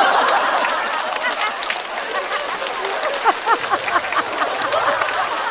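Studio audience laughing and applauding, loudest at the start and easing off slightly.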